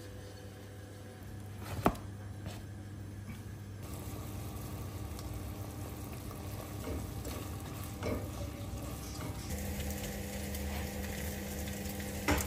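Minced meat sizzling as it fries in a pan, the hiss growing from about four seconds in, with a few light knocks of a utensil against the pan.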